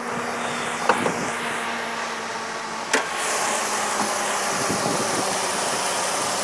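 2002 Jeep Grand Cherokee engine idling steadily. There are two sharp metallic clicks, about one second in and just before three seconds, as the hood latch is released. After that the idle, belt and fan noise from the open engine bay comes through louder and brighter.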